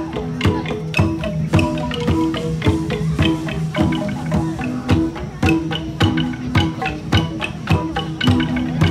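Central Highlands gong ensemble music: tuned gongs struck in a steady repeating pattern, their held pitches overlapping and ringing on between sharp beats about twice a second.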